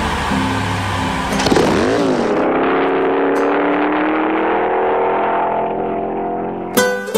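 A car engine running, then about two seconds in dipping and revving up, its pitch climbing steadily as it accelerates. Near the end an acoustic guitar comes in with strummed chords.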